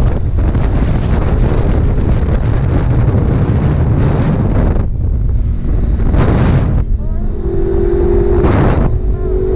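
Wind rushing over a helmet-mounted camera microphone with road and engine noise from a motorcycle riding at highway speed. About two seconds before the end, a steady held tone sounds twice over the wind.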